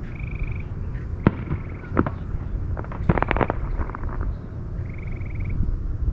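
Fireworks heard from far off: single sharp bangs about a second in and again at two seconds, then a quick run of crackling pops around three seconds in, over a low steady rumble.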